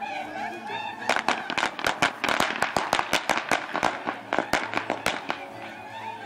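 A string of firecrackers going off: a fast, uneven run of sharp bangs starting about a second in and stopping about a second before the end.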